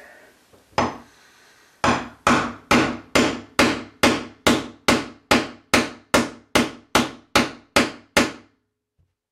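Hammer tapping a drain removal tool down into a bathtub drain: one strike, then about sixteen steady strikes roughly two a second, each ringing briefly, stopping near the end. The tapping seats the tool tighter in the drain so it grips when turned.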